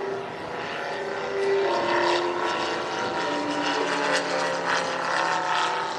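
Engine and propeller of a large radio-controlled Boeing Stearman model biplane running in aerobatic flight. The engine note drops in pitch from about a second and a half in.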